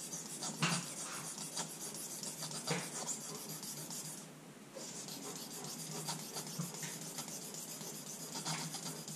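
Steel utility blade in a folding holder being stroked on the fine side of a Norton Crystolon sharpening stone, a quick run of scraping strokes that pauses briefly about four seconds in. It is the second side being ground to push the burr over to the other side of the edge.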